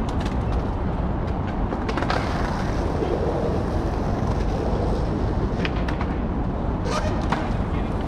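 City street ambience: a steady rumble of traffic with indistinct voices of passers-by, and a few sharp clicks near the end.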